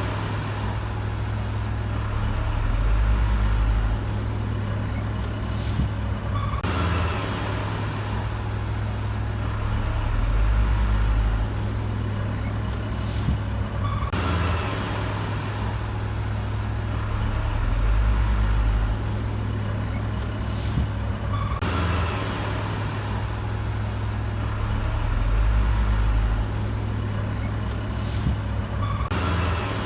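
Heavy diesel machinery engine running steadily, with a deeper low swell about every seven and a half seconds. The same stretch of sound repeats over and over as a loop.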